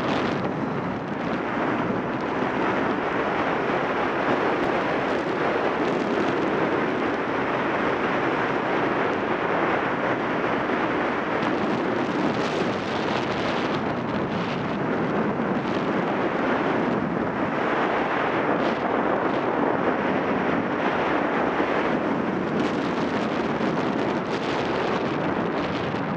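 Steady wind rush on a motorcycle-mounted microphone while riding, with a Yamaha XTZ 750 Super Ténéré's parallel-twin engine running underneath.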